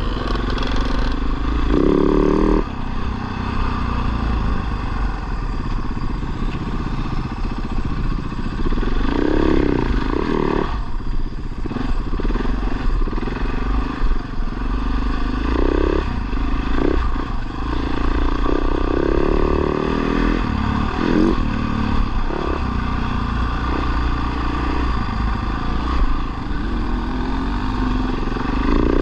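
Dirt bike engine under way on rough ground, its revs repeatedly rising and falling as the throttle is worked, over a steady low rumble.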